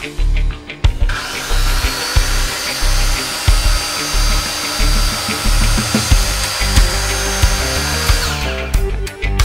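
Motor of a Bosch GCM 10 MX sliding mitre saw spinning up about a second in, then running with a steady whine that stops near the end, over background music with a beat.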